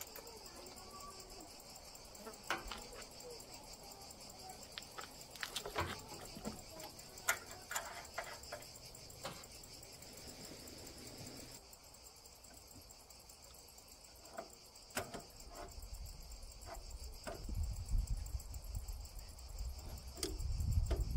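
A steady, high-pitched chorus of cicadas, with scattered sharp clicks and taps and a low rumbling that builds in the last few seconds.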